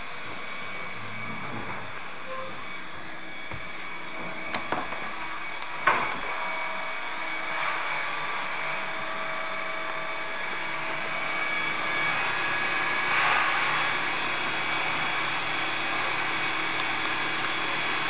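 Vacuum cleaner motor running steadily with a whining hum, with a couple of sharp knocks about five and six seconds in.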